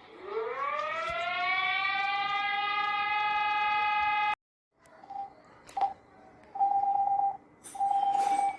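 Mock Emergency Alert System alarm: a siren tone winds up from low to a steady high pitch, holds, and cuts off abruptly about four seconds in. After a short pause, beeps on one pitch follow: a couple of brief blips, then two long tones.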